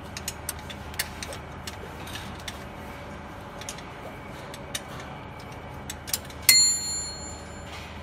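Metal tools working the adjustment screws on a bottle washing machine: scattered small metallic clicks, then about six and a half seconds in a sharp metal clink that rings for about a second. A steady low hum runs underneath.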